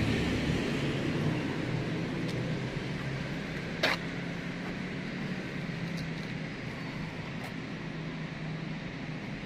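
Steady background hum and hiss, with one sharp click about four seconds in and a few faint ticks.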